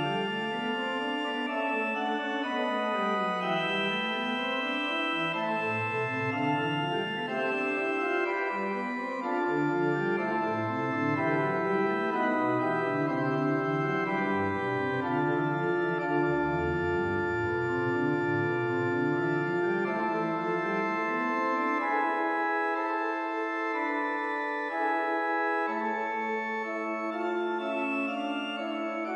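Pipe organ playing a fugue in A minor, several voices moving against each other in held notes. A lower bass voice joins about six seconds in and sinks to its deepest notes midway.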